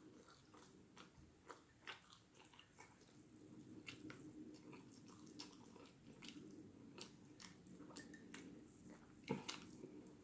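Faint chewing and biting of food close to the mouth, a scatter of soft wet clicks and smacks, with a somewhat sharper click about nine seconds in.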